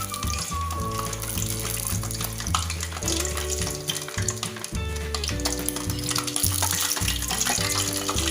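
Cooking oil sizzling and crackling as sugar-coated turon (spring rolls of glutinous rice and jackfruit) deep-fry in a pan, under background music with a steady bass line.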